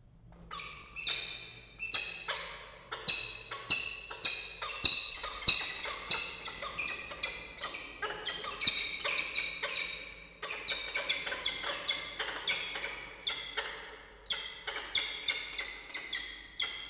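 Peregrine falcons calling at the nest during a food delivery: a loud run of harsh, repeated calls, about two a second, starting about half a second in and stopping near the end.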